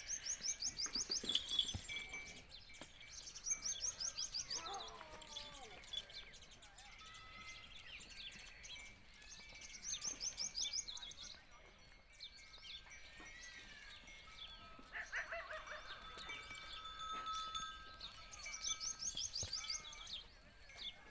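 Birds singing, one repeating a quick, high trill of rapid notes every few seconds among other chirps and whistles.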